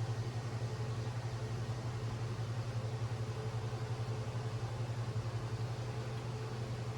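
Steady low machine hum, with a faint higher tone held above it and no distinct knocks or clicks.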